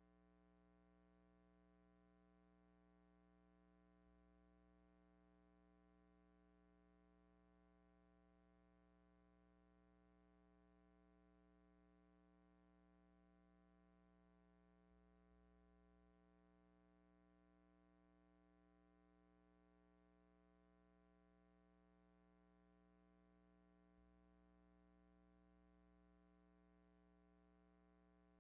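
Near silence: the soundtrack of a silent film, with only a faint, steady hum.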